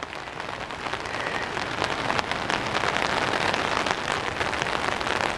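Steady rain falling, a dense hiss full of small drop impacts, growing a little louder over the first couple of seconds.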